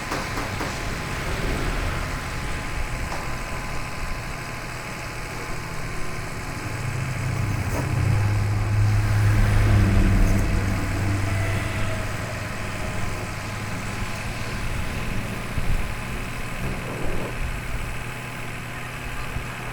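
Heavy engine running steadily at a low hum, swelling louder for a few seconds about halfway through before settling back.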